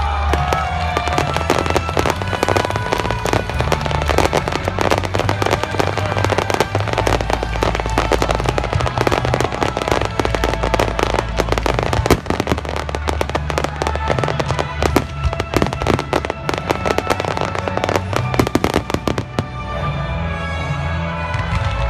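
Aerial fireworks going off in a rapid, dense barrage of overlapping crackles and bangs, easing off a few seconds before the end, with music playing under it.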